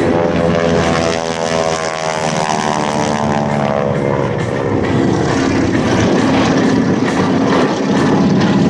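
1952 North American Harvard MK IV's Pratt & Whitney R-1340 Wasp radial engine and propeller running loud as the plane flies past. The pitch of its drone falls over the first few seconds of the pass, then holds steady.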